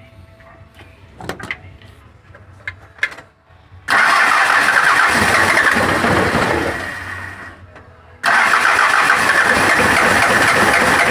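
Mitsubishi 4D56 four-cylinder diesel being cranked on its starter, in two tries. The first starts suddenly about four seconds in and fades away, and the second starts just after eight seconds. These are start attempts on a preheated engine that would not start because its fuel shut-off solenoid was burnt.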